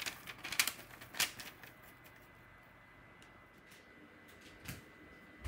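A quick run of light clicks and taps from a glass bowl and parchment paper as flour is tipped out onto a parchment-lined baking sheet, then a couple of soft knocks as the sheet is handled near the end.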